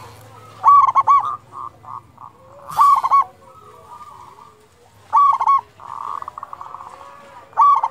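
Zebra dove (perkutut) singing: four loud phrases of ringing coos, one about every two and a half seconds, with softer quick rattling coos between them.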